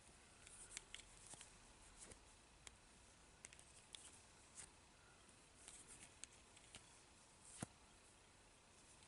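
Faint, scattered small clicks and ticks of hands and fly-tying tools working at the vise as a hackle feather is wound forward along the hook, with one sharper click about seven and a half seconds in, over near-silent room tone.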